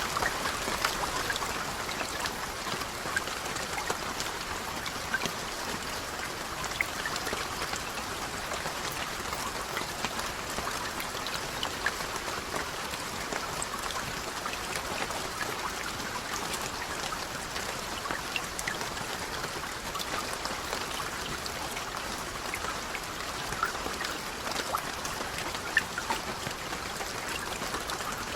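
Steady rain falling, with many separate drops heard as sharp ticks over an even hiss.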